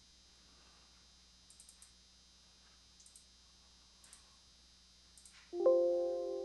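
Computer mouse clicks, a few single and in quick pairs. About five and a half seconds in, a Windows alert chime sounds and rings out: the signal of a warning dialog box popping up.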